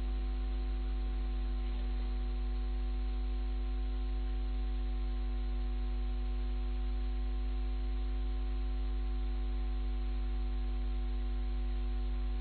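Steady electrical hum with hiss from the recording or sound system, holding one unchanging tone and its overtones throughout, with no speech.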